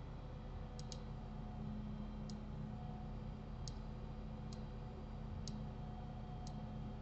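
Computer mouse button clicking: a quick double click near the start, then single clicks about once a second, over a steady low hum.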